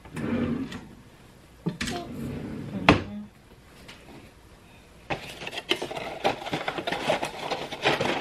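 Kitchen handling sounds: a few scattered knocks, the sharpest about three seconds in, then from about five seconds on a dense rustling clatter of dry lasagna noodles being handled in and pulled from their cardboard box.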